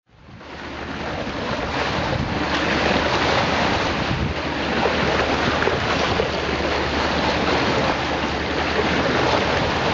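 Sea water rushing and splashing along a sailboat's bow as it motors, with wind buffeting the microphone and a low steady engine hum underneath. It fades in over the first second.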